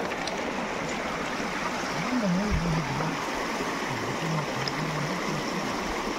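Shallow stream flowing over a rocky bed, a steady even noise.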